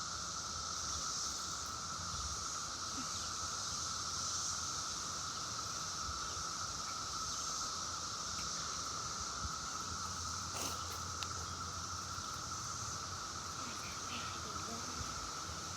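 Cicadas calling in a steady, continuous drone, with a few faint clicks or rustles over it.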